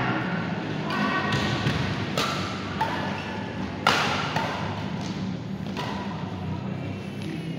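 Scattered sharp knocks and thuds, the loudest about four seconds in, over faint background music.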